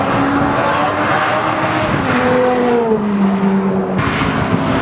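Supercar engine running hard. Its pitch jumps up about two seconds in, then slides down, and changes again near the end.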